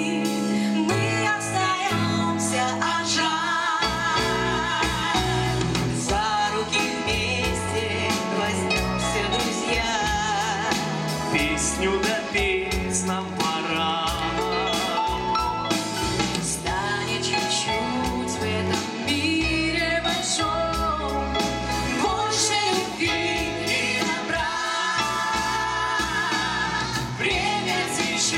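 Live pop band playing a song: two women singing with vibrato over electric guitars, bass guitar, keyboards and a drum kit.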